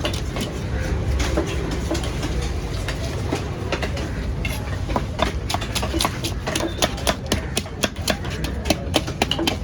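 Rapid, irregular sharp clicks and knocks of a knife working on a fish on a cutting block, coming thicker in the second half, over a steady low rumble.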